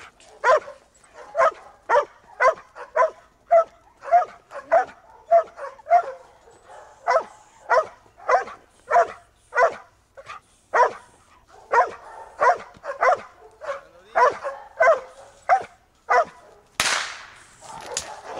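Belgian Malinois barking hard and rhythmically, about two barks a second, at a helper holding a bite sleeve. The barking stops near the end as the dog hits and grips the sleeve, with a loud rush of noise and then a single sharp crack.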